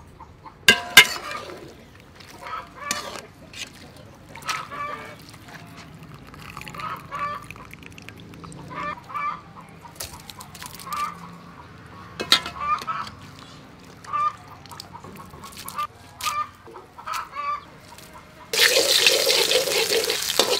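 Short pitched calls from fowl repeat every second or so, with a few sharp knocks. Near the end, minced garlic starts sizzling loudly as it fries in oil in a wok and is stirred with a spatula.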